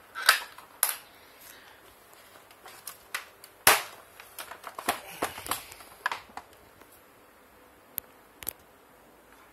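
Plastic housing of an electric rice grinder knocking and clicking against a tile floor as it is handled and turned over: scattered sharp knocks, the loudest about a third of a second in and just before four seconds in, with a run of quicker clicks around five seconds.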